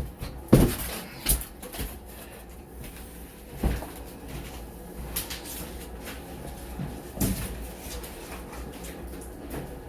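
A few sharp knocks and thuds of demolition work on a wall, the loudest about half a second in, then scattered single knocks with quiet handling noise between.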